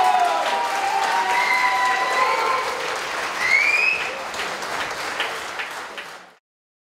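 Crowd applauding in the hall, with voices calling out over the clapping, for the winner's raised hand. The applause cuts off abruptly near the end.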